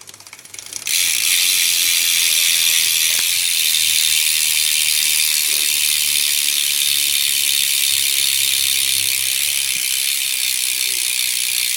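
Salt Pro V2 rear hub on a BMX bike, its pawls ratcheting so fast as the wheel spins that the clicks blur into a loud, steady, high-pitched buzz. It starts about a second in after a few separate clicks.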